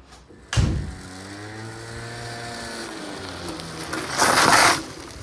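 Small moped scooter engine running and revving as it rides up, starting abruptly about half a second in, its pitch rising and then falling. A loud rush of noise about four seconds in as the scooter comes up close.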